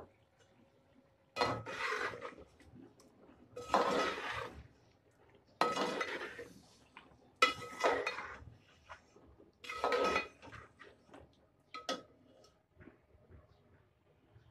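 Metal slotted spoon scraping and clinking against an aluminium cooking pot as chicken pieces are stirred in the spiced ghee. About six strokes, roughly every two seconds, each with a short metallic ring.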